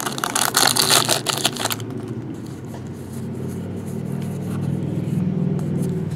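Foil trading-card pack wrapper crinkling as it is torn open and the cards are pulled out, for about the first two seconds. After that, a low steady rumble that swells a little toward the end.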